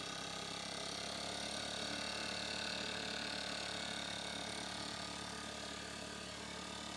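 Small engine of a motorized backpack fertilizer blower running steadily at an even speed while it blows fertilizer across a rice paddy.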